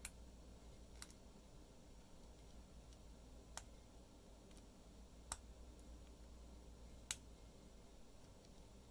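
Lock being picked: five sharp, faint clicks spaced one to two seconds apart as the picking tools work inside the challenge lock, over near-silent room tone.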